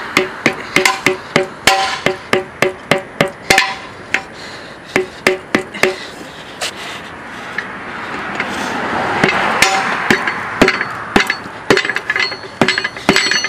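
Hammer striking a steel crowbar wedged between a tire's bead and the rim, about four blows a second with a metallic ring, to pry the rim out of the tire. After a pause with a rising and falling rush of noise, a fresh run of strikes comes near the end.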